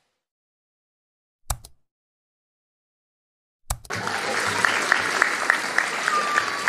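A short click sound effect with a quick double echo, then about four seconds in, audience applause starts abruptly and carries on steadily, with a row of short high-pitched sounds over it.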